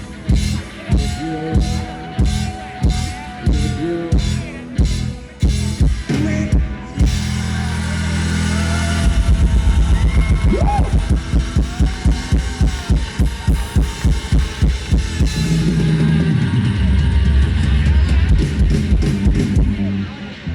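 Live rock band playing the song's instrumental ending on drum kit and electric guitar. Even drum hits give way about halfway to faster hits, building into a long held final chord.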